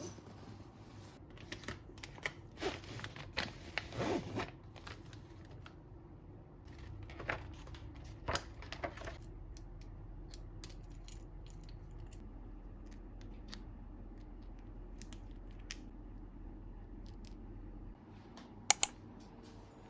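Packaging being handled and opened: rustling and crinkling with scattered clicks and taps, busiest in the first few seconds, then only occasional light ticks, and two sharp clicks near the end.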